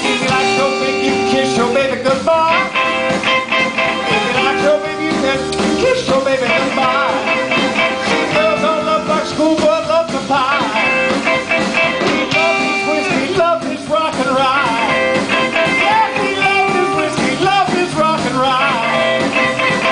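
Live blues band playing: electric guitar, bass guitar and drums.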